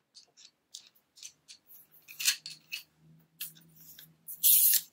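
Telescoping monopod being handled: a string of small clicks and snaps from its lock clamps and sections, with a louder scrape about two seconds in and a longer scraping rush near the end.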